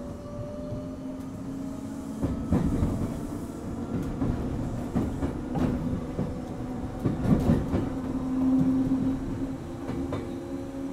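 Running sound of a Gakunan Railway 7000 series electric railcar (ex-Keio 3000 series): a traction-motor whine rises slowly as the car gathers speed, over a low rumble with irregular knocks and clatter from the wheels on the rails.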